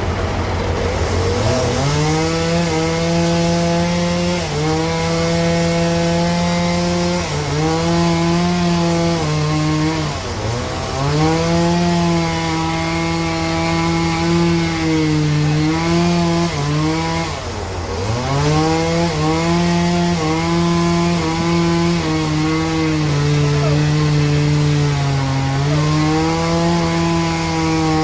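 Band sawmill cutting through a large log: a steady hum from the drive under a pitched whine from the saw that sets in about a second and a half in, its pitch dipping and recovering again and again.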